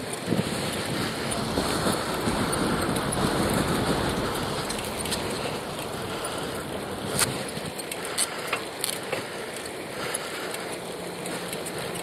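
Steady noise of a recumbent bicycle being ridden, tyre rolling noise and wind on an earpiece microphone, with a few sharp clicks in the second half.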